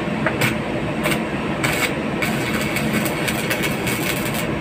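Stick (arc) welding electrode being struck against steel: a few separate crackles as the arc catches, then a continuous crackling arc from about halfway through, over a steady machine hum.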